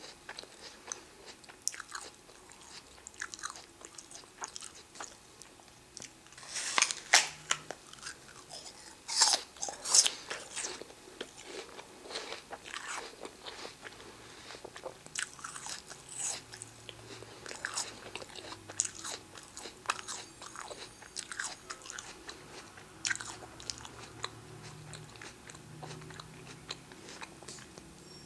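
Person biting into a raw apple and chewing it. Two loud crisp crunches come about seven and ten seconds in, followed by many smaller crunches as the apple flesh is chewed.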